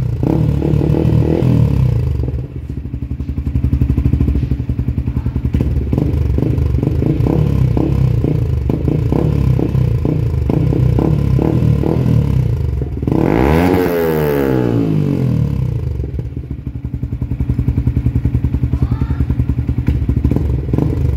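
Yamaha Sniper 155R's single-cylinder engine running through an MVR1 aftermarket exhaust, idling with an even, steady exhaust pulse. Its revs fall back to idle right at the start, and about 13 seconds in it is blipped once, rising in pitch and dropping back to idle.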